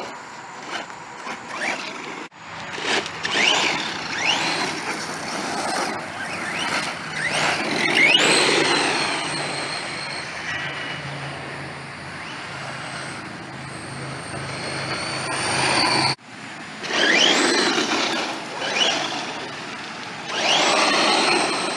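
Redcat Shredder brushless electric RC monster truck driving hard: its motor whine rises sharply in pitch with each burst of acceleration, over tyre and ground noise. The sound breaks off abruptly twice, at about two seconds and sixteen seconds in.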